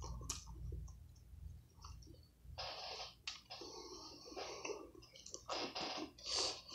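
Close-up chewing and wet mouth clicks of a person eating a chicken sandwich on thick bread, with several louder stretches of chewing in the second half, over a faint low hum.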